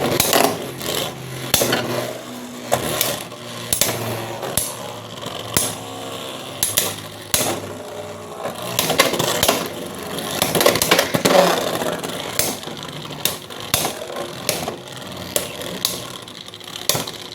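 Two Beyblade X spinning tops, one a UX-13 Golem Rock, battling in a plastic stadium: a running whir broken by many sharp clacks as the tops strike and scrape against each other and the stadium walls.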